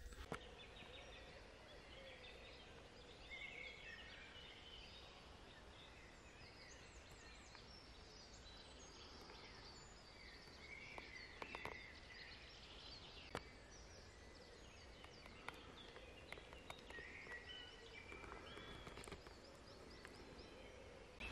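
Faint woodland birdsong: several small birds chirping and trilling at a distance, with a couple of soft clicks about midway.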